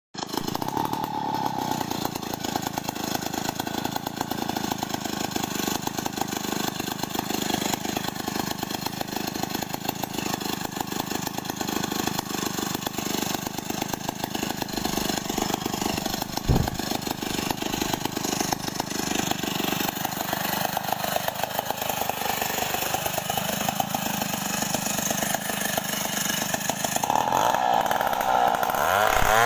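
Stihl 070 two-stroke chainsaw running steadily, with one sharp knock about halfway and the engine revving higher near the end.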